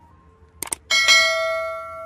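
A pair of sharp clicks, then a bell struck twice in quick succession, its ringing fading over about a second and a half.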